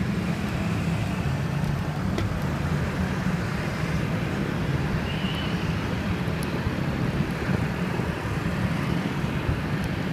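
Steady city street traffic noise: cars and motorbikes running on the road, with no single vehicle standing out.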